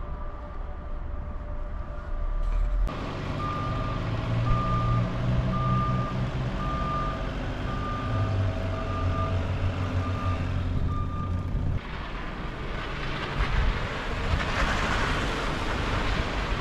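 Large vehicle's reversing alarm beeping about once a second, eight times, over its running engine, then stopping. A louder rushing noise swells near the end.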